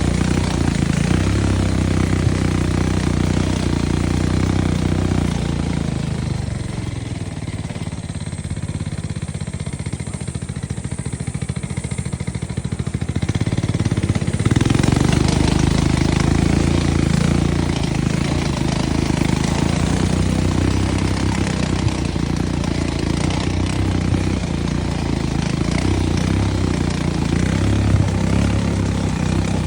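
ATV engine running steadily. It eases off and turns quieter for several seconds near the middle, then picks up again.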